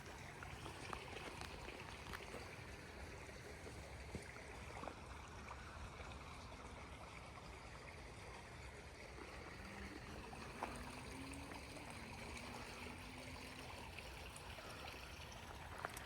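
Faint trickling of creek water, with a few light ticks and taps.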